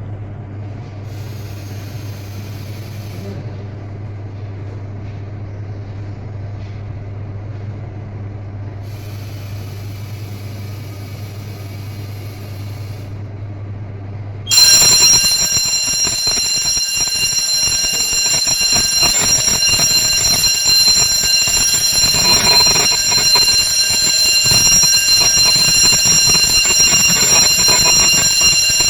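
A steady low hum, then about halfway through a fire alarm sounder of a Kidde FM-200 suppression system starts suddenly and sounds continuously at a high pitch, set off by the system under test.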